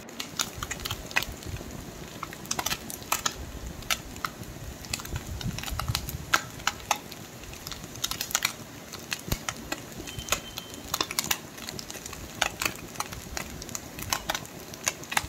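Hot oil crackling and spitting around small whole fish frying in a kadai: sharp, irregular pops, some in quick clusters, over a faint steady sizzle. The fish are nearly done.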